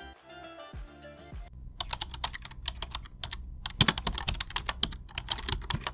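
Computer keyboard typing: quick, irregular key clicks, several a second, starting about a second and a half in after a faint fading tail of music.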